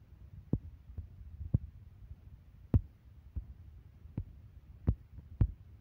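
A series of about ten soft, irregularly spaced taps and knocks over a faint low hum, the sharpest about one and a half and two and a half seconds in.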